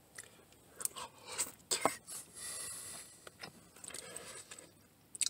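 Eating at close range: a few sharp clicks and scrapes of a utensil in a takeout food container, mixed with chewing and a brief rustle a little over two seconds in.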